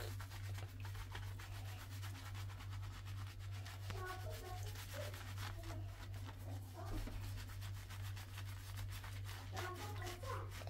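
Fingers scrubbing a thick shampoo lather through a child's wet hair: a continuous run of quick, soft, wet rubbing strokes over a low steady hum.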